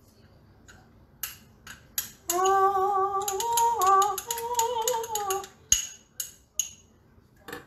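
A woman humming a slow tune for about three seconds, starting about two seconds in. Light clicks and taps of a spoon packing rice into a ramekin come before, during and after it.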